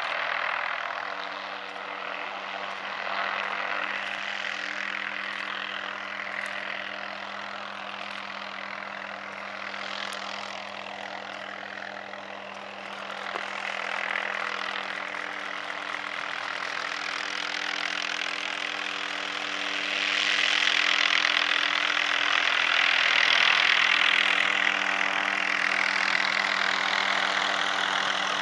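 Helicopter flying toward the listener while herding horses, its rotor and engine noise growing louder in the last third. Under it runs a steady low engine hum.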